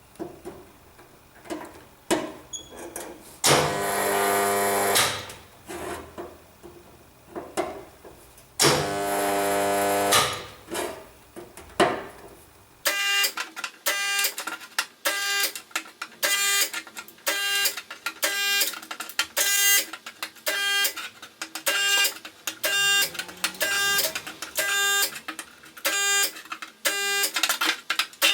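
A resistance spot welder buzzing twice, each weld lasting about a second and a half, with clicks and knocks of the tongs and sheet metal in between. At about thirteen seconds this gives way to a fast, even run of short pulses on fixed pitches.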